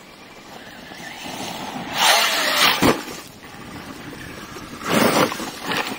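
Electric RC basher driving, its motor whine building over the first two seconds. Two loud rushing bursts follow, one about two seconds in lasting nearly a second and a shorter one near five seconds.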